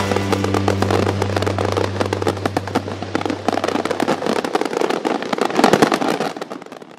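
Fireworks going off in a dense, fast crackle of small pops and bangs, getting busiest about six seconds in and then dying away. Under the first part, a held low note from the music fades out about four seconds in.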